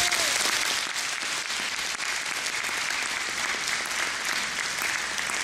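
Church congregation applauding: steady clapping that eases slightly near the end.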